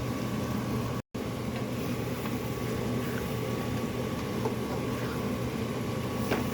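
Chicken pieces simmering in a pan of onion-tomato gravy: a steady bubbling hiss with a low hum underneath and a few faint ticks. The sound cuts out for an instant about a second in.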